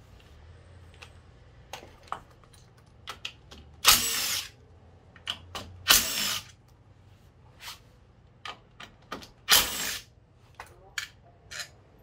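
A cordless driver with a socket extension spinning out the bolts of a Honda ADV350's drivetrain cover in three short bursts, with sharp clinks of tools and bolts in between.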